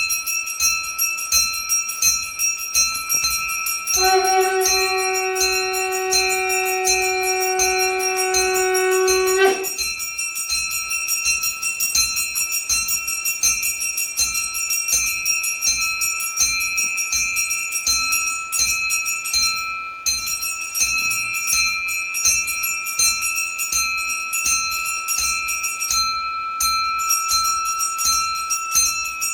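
Puja bell rung continuously in an even, rapid rhythm, its bright ringing tones held throughout. About four seconds in, a long steady blast from a blown conch shell joins it for about five seconds, then stops abruptly.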